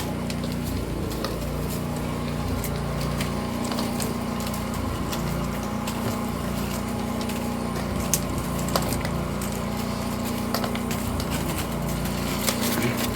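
A small engine runs steadily, most likely the generator or engine-driven water pump used to test the farm's water supply. Scattered light clicks and knocks sound over it, with a few sharper ones near the end.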